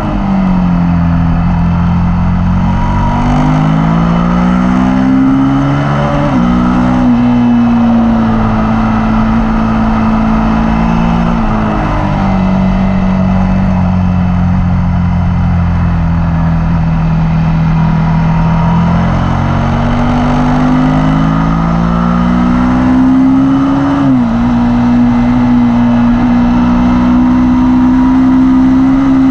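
Onboard sound of a Suzuki SV sport motorcycle's V-twin engine at track speed, with wind rush over it. The engine note falls at first, then rises under acceleration. It drops with gear changes about six seconds in and again around twelve and twenty-four seconds, and holds steadier through the long corners between.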